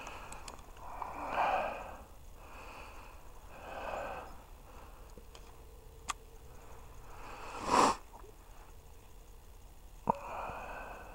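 A person breathing close to the microphone: several audible breaths and puffs, the strongest about a second and a half in and just before eight seconds in. Two sharp clicks, at about six and ten seconds in.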